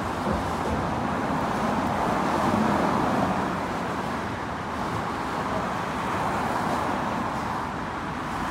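Steady road traffic from cars passing on the bridge approach, a continuous hum of tyres and engines that swells slightly a few times as vehicles go by.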